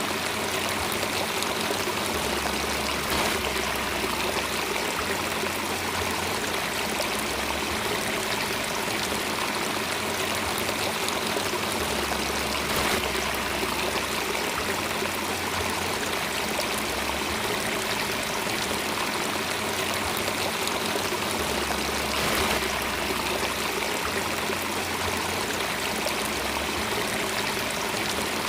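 Steady running water of a stream, an even continuous rush and trickle with no breaks.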